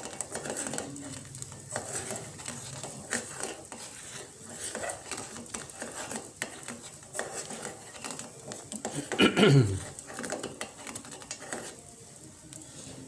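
Spoon stirring in a pot of jamu on the stove, with repeated clinks and scrapes against the pot. About nine seconds in comes one louder scrape, sliding down in pitch.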